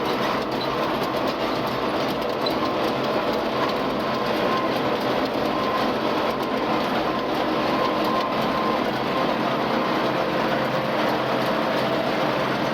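Tractor engine running under steady load together with a Krone KR 130 round baler working behind it, picking up wilted hay to make baleage. The machinery noise is steady and even, with a constant pitch throughout.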